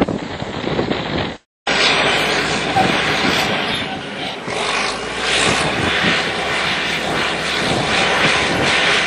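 Wind-buffeted noise, a brief dropout about one and a half seconds in, then a large engine running steadily with a loud, even drone and a low hum.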